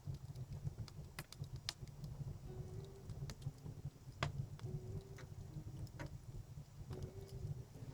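Wood fire crackling in an outdoor fireplace: irregular sharp pops and snaps, one or two a second, over a steady low rumble.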